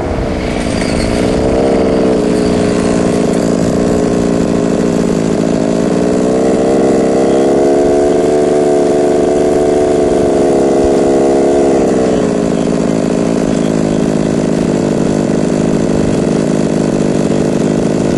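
Small engine idling steadily, its pitch drifting gently up and down and dropping a little near the end.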